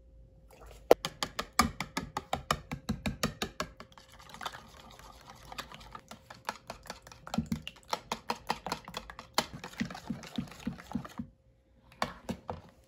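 Wire whisk beating eggs and milk in a baking dish, the wires clicking and knocking against the dish in a quick rhythm of about five strokes a second. It pauses briefly near the end, then a few more strokes.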